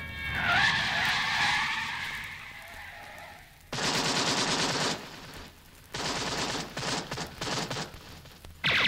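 Sound effects on a record track playing from vinyl: a noisy whooshing sweep, then a dense blast of noise about four seconds in, then a rapid run of sharp cracks like machine-gun fire.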